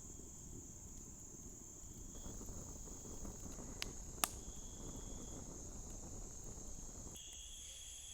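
Night insects chirring in a steady, high, continuous trill. There is a sharp click a little after halfway, and a second, lower trill joins near the end.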